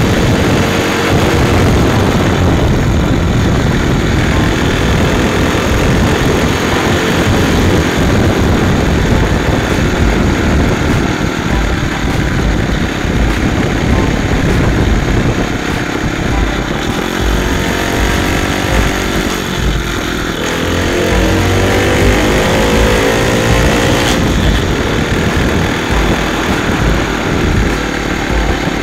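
Motorcycle engine running on the move, heavily buffeted by wind on the microphone. Its pitch slides up and down a few times about two-thirds of the way through as the rider changes speed.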